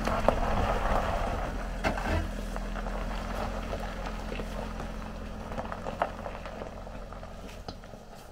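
Woelcke Autark Runner 4x4 camper van's engine running at low speed as the van drives away over grass and loose stones, its hum fading, with a few sharp clicks and knocks along the way.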